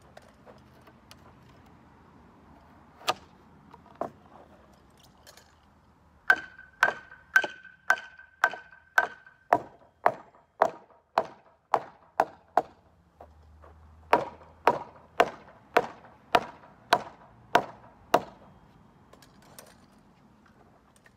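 Hammer blows on framing lumber, driving nails: two single knocks, then a steady run of about a dozen blows at about two a second, the first few with a ringing tone. After a short pause comes a second run of about eight blows.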